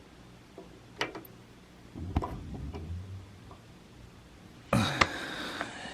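Clicks and knocks of a Mr. Heater Portable Buddy propane heater being handled and tipped, with a sharp click about a second in and low knocking a second later. Near the end a louder sound with a short vocal noise, like a throat clearing.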